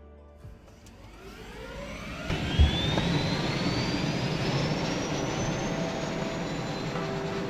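Helicopter turbine engine spooling up: a whine rising steadily in pitch for several seconds, with the running noise growing loud and then holding steady. There is a low thud about two and a half seconds in.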